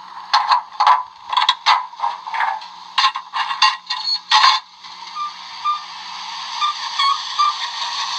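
Sound-equipped model of a New Haven I4 4-6-2 steam locomotive: a run of short, uneven steam-like bursts, then, about five seconds in, a steady hiss that slowly grows louder.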